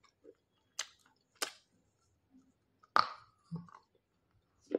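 Hard edible clay being bitten and chewed: a handful of short, sharp crunches with quiet between them, the loudest about three seconds in.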